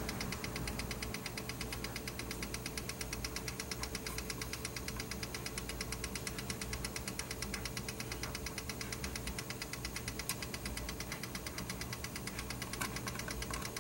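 Powered-on cassette deck running with a rapid, even mechanical ticking over a steady hum.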